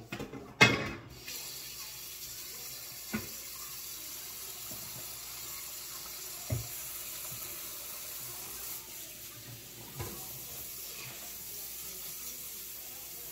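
Kitchen tap turned on with a clunk just under a second in, then water running steadily into the sink, with a few knocks.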